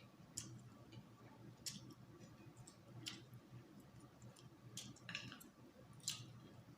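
Faint, sharp mouth clicks and smacks of someone eating, about six of them spaced a second or so apart.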